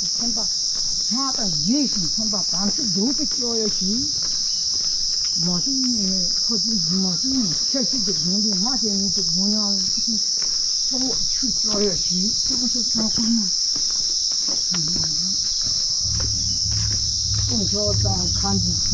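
Insects shrilling in a steady high drone, with a man's low voice reciting in a rising and falling chant under it. A low rumble comes in near the end.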